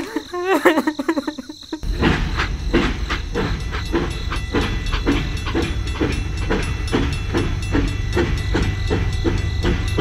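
A machine chugging in a steady rhythm, about three beats a second over a low rumble, starting abruptly about two seconds in. Before it comes a brief wavering, high-pitched sound.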